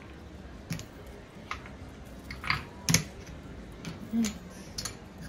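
Casino chips clicking against each other and the felt as the dealer pays out a winning blackjack bet: a string of separate sharp clicks, the loudest about three seconds in.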